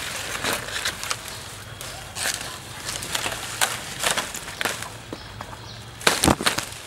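Leaves and twigs of a bush rustling as a hand pushes through and grabs at the foliage, in a run of short rustles; the loudest comes a little after six seconds in.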